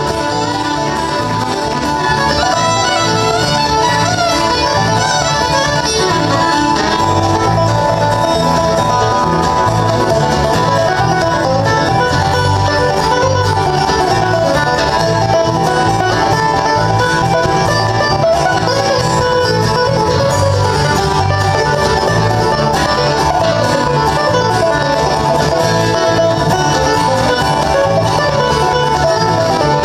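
Bluegrass band playing an instrumental, with picked banjo prominent over fiddle, acoustic guitar and electric bass.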